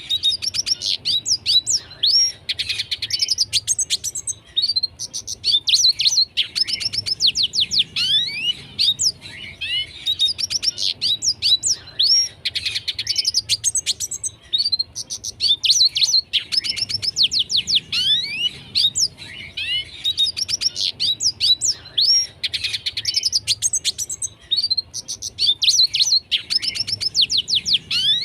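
Red siskin in full song: a fast, continuous twittering of rapid rising chirps and trills, sung in phrases a few seconds long with brief pauses between them.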